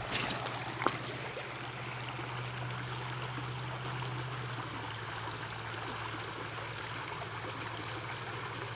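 Creek water running and trickling steadily, with two sharp clicks in the first second, the second the loudest.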